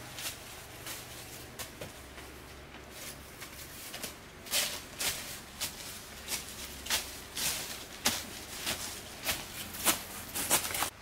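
Footsteps on a dry, leaf-littered forest path, faint at first and then closer and louder from about four seconds in as the walker approaches, each step a short crackle of leaves.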